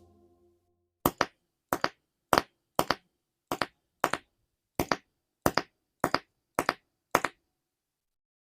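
A run of sharp clicks, about a dozen, most of them doubled, coming about every half second and then stopping abruptly.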